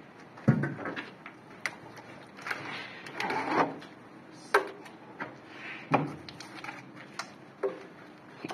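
Plastering tools knocking and scraping: a long metal straightedge handled against the wall and a steel plastering trowel worked on the wet plaster. About five sharp knocks, with a stretch of scraping near the middle.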